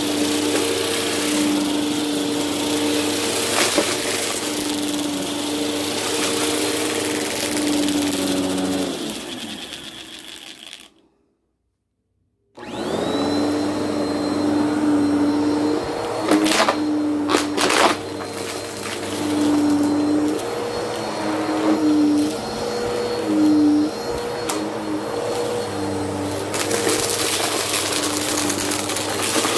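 Bissell CleanView upright bagless vacuum running over carpet, picking up small crunchy debris with a light crunch and a few sharp crackles. The motor winds down and stops about ten seconds in, then starts up again a couple of seconds later, its hum wavering as it is pushed through the debris.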